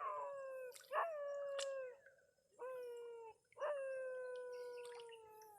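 A dog howling: four long, drawn-out howls, each sliding slightly down in pitch, the last one the longest and fading away.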